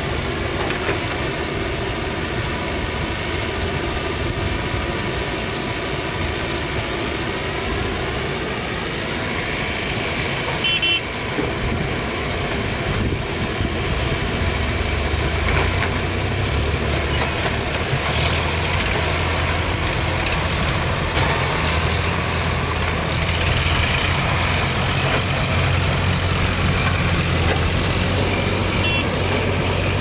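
Diesel engine of a Mahindra backhoe loader running steadily as its backhoe arm digs. A deeper, slightly louder drone joins about halfway through.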